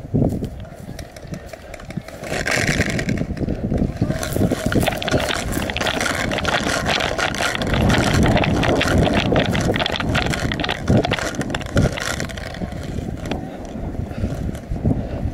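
Wind buffeting a head-mounted camera's microphone as a paintball player runs, with quick footfalls on dry grass and gear knocking. The rush and clatter are thickest through the middle, then ease near the end.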